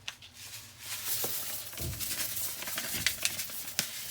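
LemiShine dishwasher cleaner powder poured from its pouch onto the bottom of an empty dishwasher: a steady pattering hiss of granules with scattered small clicks and knocks.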